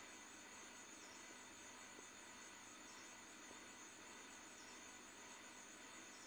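Near silence: faint room noise under a thin, steady high-pitched trill.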